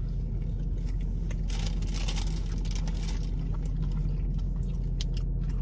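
Steady low hum of a running car heard inside its cabin, with a food wrapper crinkling about a second and a half in and soft chewing and handling noises.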